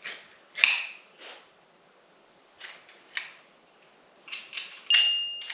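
Arrow T50 manual staple gun being loaded and worked by hand: a string of sharp metallic clicks and snaps, the loudest under a second in and several close together near the end. A brief high ringing tone starts near the end.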